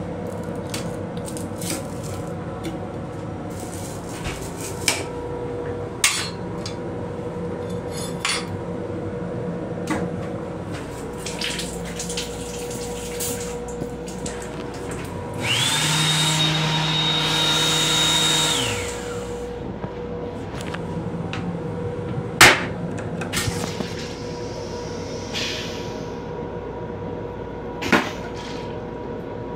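The sink faucet in an M7 railcar restroom runs for about three seconds, water spraying with a motor whine that rises as it starts and falls away as it stops. Under it is a steady hum from the moving train, with a few sharp clicks.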